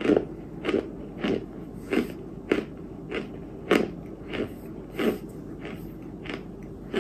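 Close-miked chewing of a hard, crunchy white chunk: steady crunches, a little under two a second.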